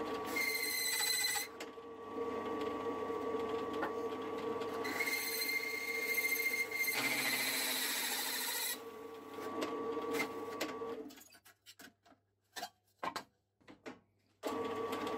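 Drill press running with a hole saw cutting into a stainless steel plate: a steady motor hum, with the saw squealing at a high pitch twice as it bites into the metal. About eleven seconds in the sound drops almost to nothing, with a few faint clicks, and the drill's hum comes back just before the end.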